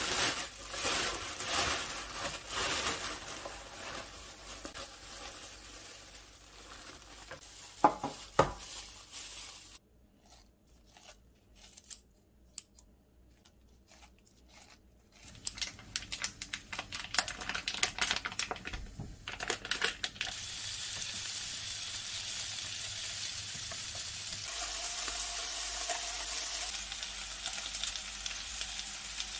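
Plastic bag rustling as kimchi is lifted out of a container, with two sharp clicks about eight seconds in. After a near-quiet stretch come kitchen scissors snipping through kimchi. From about twenty seconds in, sliced duck meat sizzles steadily in a frying pan.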